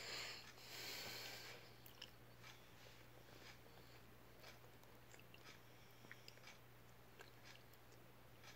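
Near silence: a faint steady hum with scattered small clicks, and a brief soft hiss in the first second or so.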